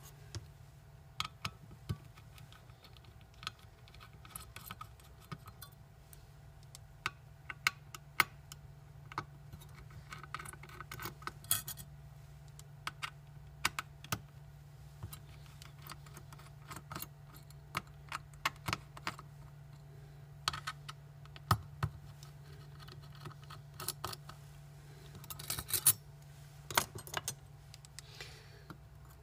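Irregular small metallic clicks and taps from tweezers, screws and parts being handled on an opened hard disk drive, a few in quick clusters, over a steady low hum.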